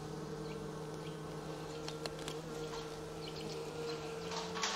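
Honeybees from an open hive buzzing in a steady, even hum, with a few faint clicks.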